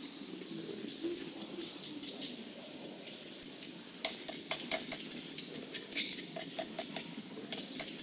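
Thin tin-can moulds being crumpled and peeled off cast pieces by hand: irregular crisp clicks and crinkles of the sheet metal, sparse at first and coming thick and fast from about four seconds in, over a low steady hum.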